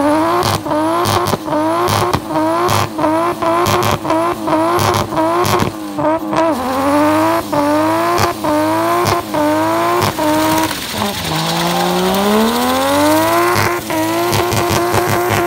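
Car engine held at high revs during a burnout, rear tyres spinning in clouds of smoke. The revs are cut with a sharp crack about twice a second and climb back after each; about 11 seconds in they drop and climb back up to hold high.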